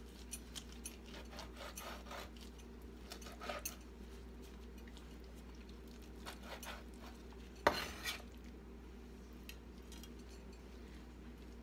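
A chef's knife slicing cooked chicken thighs on a wooden cutting board: faint, scattered taps and scrapes of the blade against the board, with one sharper knock about two-thirds of the way through.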